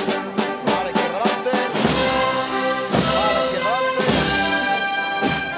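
Brass band playing a Holy Week processional march, brass carrying the tune over frequent sharp drum strokes.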